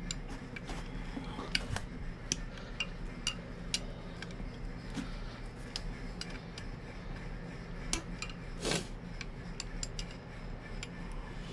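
Irregular light clicks and clatter of a distributor cap and its spark plug wires being worked loose by hand on a Crusader 270 marine engine, with one brief louder scrape about two-thirds of the way through.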